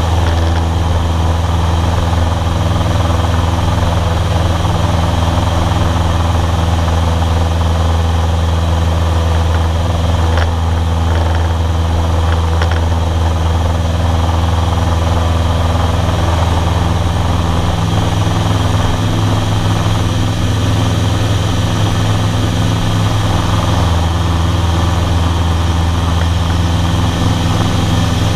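Cessna 152's four-cylinder Lycoming engine and propeller droning steadily in flight, heard from inside the cockpit with airflow rushing over the cabin; the low engine tone shifts slightly about two thirds of the way through.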